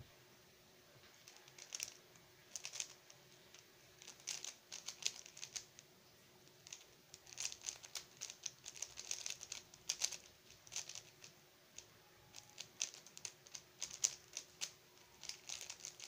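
Plastic clicking and clacking of a Xin Lexin stickerless 3x3 speedcube being turned fast during a timed solve, in quick flurries of turns with brief pauses between them.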